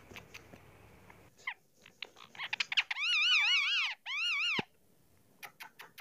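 Indian ringneck parakeet calling: a few short chirps, then two warbling calls about three seconds in, the first about a second long and the second shorter, ending in a sudden downward drop, with scattered soft clicks after.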